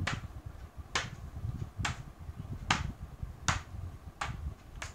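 Paper cutout axe striking a paper drawing of a tree in a mimed chopping: seven sharp taps, a little under one a second.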